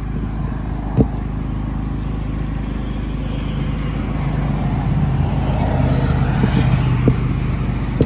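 A steady low engine hum that swells for a few seconds past the middle. Over it, a sharp knock about a second in and another near the end as a twist-lock shore-power plug is fitted into a camper's power inlet.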